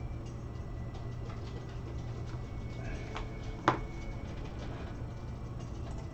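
Steady low hum with faint light ticking, and a single sharp tap from handling on the card table about three and a half seconds in.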